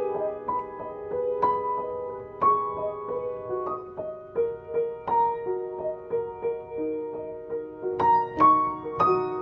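Piano played by hand: a melody of held, overlapping notes and chords, mostly in the middle register, with a louder chord about eight seconds in.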